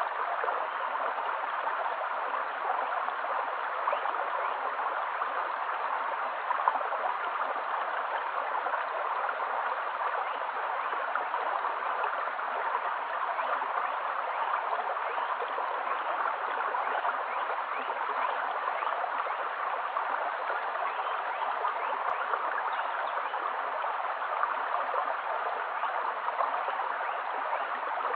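A shallow, stony stream running steadily: a constant babble of water flowing over pebbles.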